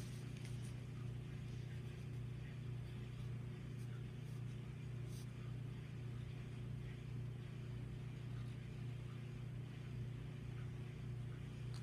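A steady low hum with a few faint, scattered light ticks over it.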